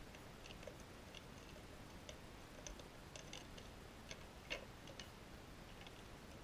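Dog licking and gnawing at an empty dog-food tin, her teeth and tongue knocking against the metal in faint, irregular clicks, with one louder click about four and a half seconds in.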